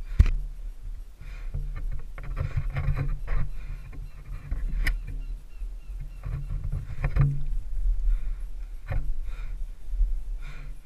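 Climbing rope and lanyard scraping and rubbing against an aspen trunk, with irregular knocks and clicks of gear. One sharp knock comes about a quarter second in, and there are others near the middle and after about seven seconds, over a steady low rumble of handling noise on the head-mounted camera.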